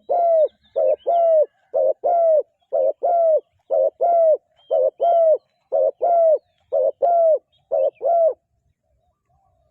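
Spotted dove cooing in a fast, steady run of paired coos, a short note then a longer, slightly falling one, about one pair a second; the calling stops about eight seconds in.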